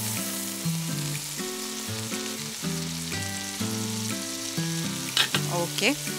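Vegetables sizzling in a hot grill pan, a steady frying hiss, with a melody of short notes changing every half second or so playing over it.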